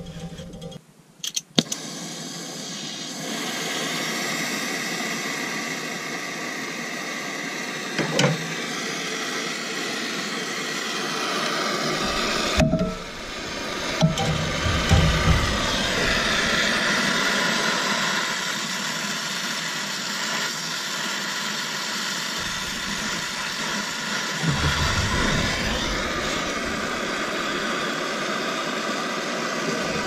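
Brazing torch flame burning with a steady hiss as it heats the copper refrigerant line joints, with a few sharp knocks of metal tools on the tubing.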